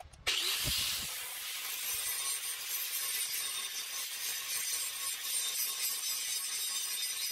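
Parkside PWS 125 E4 angle grinder with a grinding disc, grinding steel to bevel a V joint for welding. The grinding starts abruptly just after the start and runs on steadily, with a high whine over the rasp.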